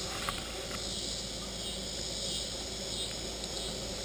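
Steady chorus of crickets and other insects chirring in summer woodland, with a couple of faint clicks.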